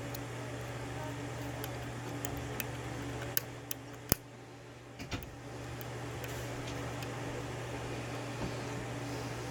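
Small sharp metallic clicks and ticks from a lock pick and tension wrench working the pins of a Yale pin-tumbler half euro cylinder, over a steady hum. There are about half a dozen clicks, the sharpest about four seconds in.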